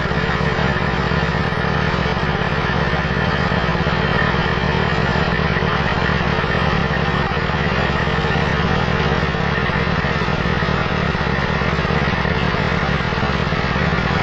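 Yamaha Junoon motorcycle engine running steadily, its rear tyre spinning against the roller of a small centrifugal water pump and driving it.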